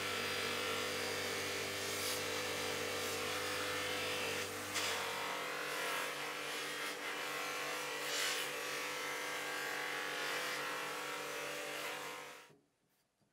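Bench grinder motor running a cloth buffing wheel, with the wooden cricket bat pressed against the wheel to polish it: a steady electric whir over a rubbing hiss. It cuts off suddenly near the end.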